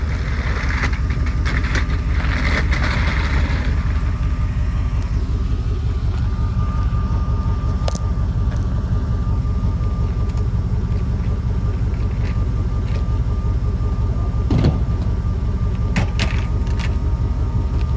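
Vehicle running with a steady low rumble, with hissy noise over the first few seconds and a faint steady tone after that; a few sharp clicks or knocks come near the end.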